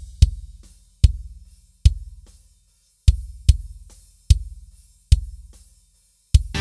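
Sampled kick drum from Superior Drummer 3 playing back in a steady pattern, as captured by its kick-in microphone channel. About eight strong hits come less than a second apart, each with a deep, ringing low-end decay, and fainter hits fall in between.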